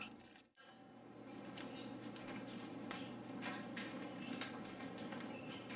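A few light clicks and clinks of a stainless cooking pot and utensils being handled, over a faint low steady hum. The sound drops out briefly about half a second in.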